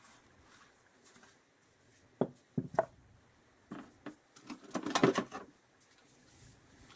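Old motorcycle parts being handled in a box of spares: scattered knocks and clinks, with a louder cluster of clattering about five seconds in.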